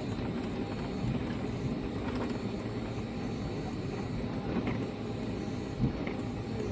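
Steady cabin noise of a Boeing 757 airliner with its jet engines running: a low rumble and air hiss with a faint steady high whine, and one light knock about six seconds in.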